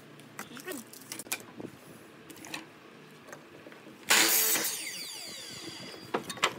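Miter saw chopping through a wooden board: a sudden loud cut lasting about half a second, about four seconds in, then the blade's whine falling as it spins down. Before the cut, small knocks and clicks as the board and the stop clamp on the fence are set; a few sharp clicks near the end.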